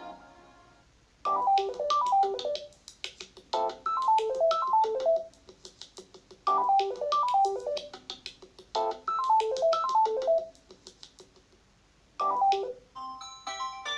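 Samsung Galaxy A12 ringtone: a short run of quick chiming notes falling in pitch, repeated over and over with short pauses between. Near the end a different ringtone melody starts.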